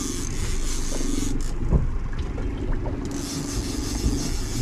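Boat engine running steadily: a low rumble under a steady hiss of wind and water.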